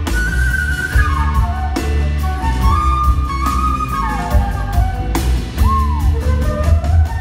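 Live band music with a flute solo on top: the flute plays quick runs of notes stepping downward, with one bent note near the end, over bass, drums and guitar.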